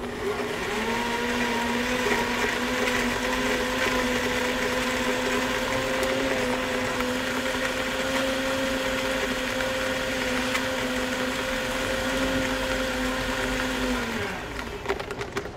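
High-speed countertop blender crushing ice and fruit: the motor spins up just after the start, runs at a steady pitch, then falls in pitch as it winds down near the end.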